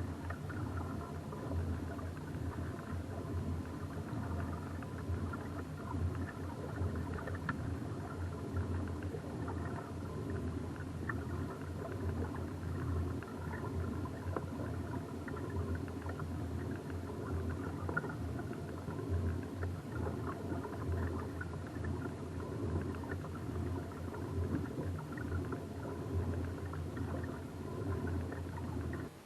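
Steady low rumbling noise from a kayak out on the water, with a few faint knocks scattered through it.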